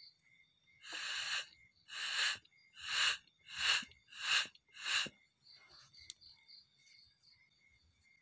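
Six short hissing whooshes, coming quicker toward the end, as sanding dust is cleared off a carved piece of sonokeling (Indian rosewood) root held close to the microphone. Crickets chirp steadily in the background.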